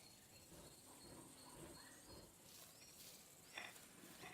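Near silence: faint outdoor ambience with an insect chirping at a high pitch a few times a second, which stops about halfway through, and a brief click near the end.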